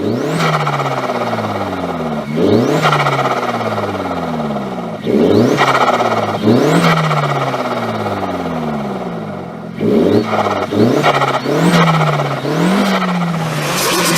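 Turbocharged car engine revved sharply about eight times. Each rev climbs fast and then falls away, with turbo flutter as the throttle snaps shut: compressor surge chatter from air backing up through the turbo.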